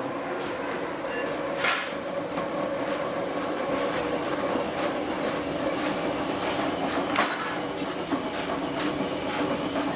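Workshop machinery running steadily with a hum and a thin high tone, with a few sharp metal clicks.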